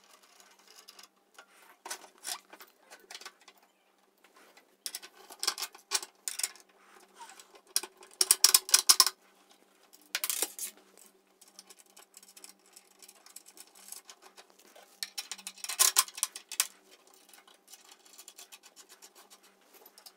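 Bursts of sharp clicking and rattling from the metal parts of an iTap PRO bottle filler as its bolts are undone and done up again to set the filling head's height for a swing-top bottle. The loudest rattles come about 8 s in and again about 16 s in.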